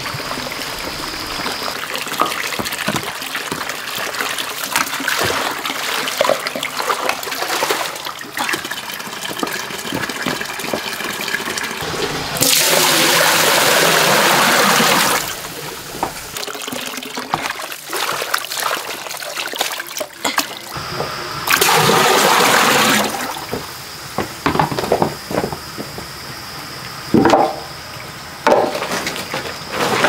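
Water poured from a container into a large metal cooking pot, in two loud, even rushes of a few seconds each, with knocks and clatter of handling in between.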